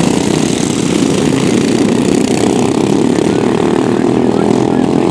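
Several racing ride-on lawn mowers' small engines running together at speed, a loud, steady mix of engine noise.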